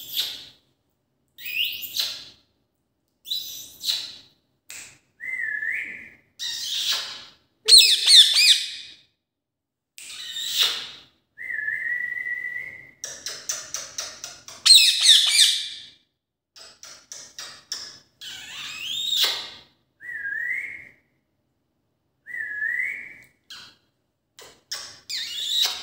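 Indian ringneck parakeet vocalizing in short bursts with pauses between: high calls and chatter that slide in pitch, and four short level whistles that turn upward at the end.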